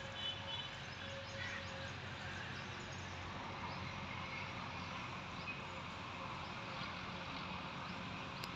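Steady outdoor background noise with no distinct event standing out.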